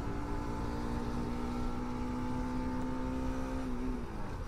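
Motorcycle engine running steadily at cruising speed, with wind rumble on the microphone. Near the end the engine note falls briefly, then steadies again.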